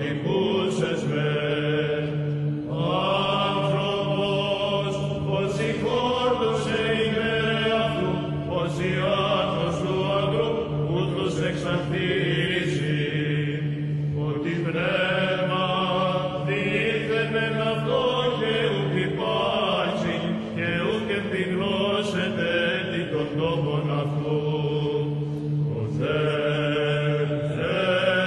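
Greek Orthodox chant: a sung melody in phrases of a few seconds each over a steady held drone note.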